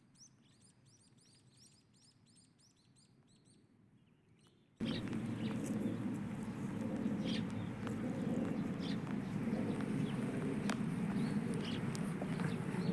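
A bird chirping faintly in a quick run of repeated rising notes, about four a second. About five seconds in, it gives way abruptly to a much louder steady low rumble of outdoor noise with scattered sharp ticks.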